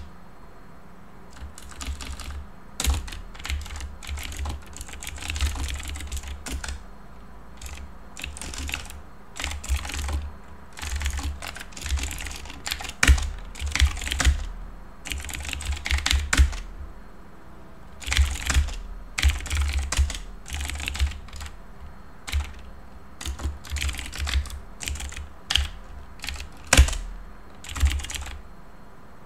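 Computer keyboard typing: quick runs of keystrokes with short pauses between them.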